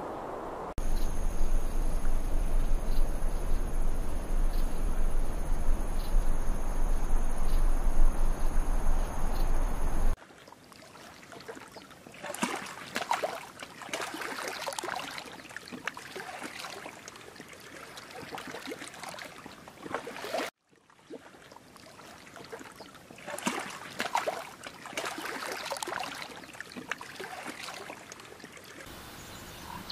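Steady rushing noise with a deep rumble and two thin high steady tones. About ten seconds in it cuts to a shallow stream trickling and splashing over rocks: an irregular patter of small splashes, broken briefly about twenty seconds in.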